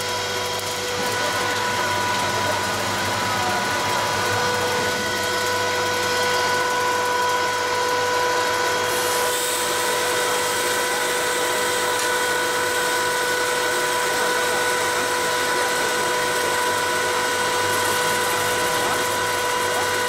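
Hot air popcorn machine running: a steady mechanical drone with a constant high whine. A brighter hiss joins about nine seconds in and eases off near the end.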